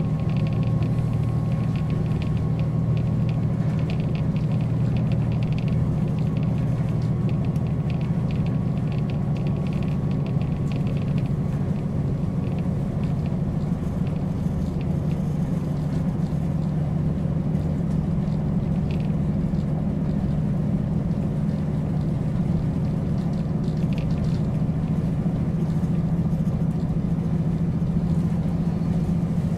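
JR Hokkaido KiHa 40 series diesel railcar heard on board: the diesel engine running at a steady low drone with a rumble, and light crackling during roughly the first half.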